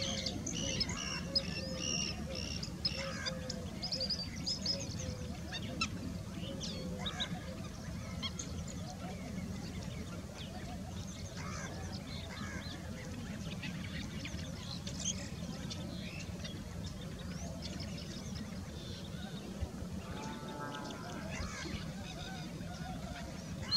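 Waterbirds calling at a lake: many short high calls, thickest in the first several seconds and sparser after, with one lower, pitched call about twenty seconds in, over a steady low background hum.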